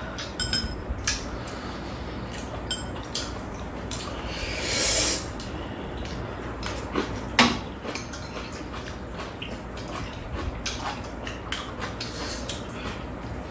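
Ramen being eaten: metal chopsticks clicking against the ceramic bowls again and again. A loud slurp of noodles comes about five seconds in, and a sharp clink of utensil on bowl a couple of seconds later.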